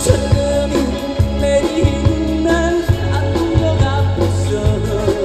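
Live band playing a Korean trot song: a man sings the melody over a drum kit, electric guitars and keyboard, with a steady beat and bass line.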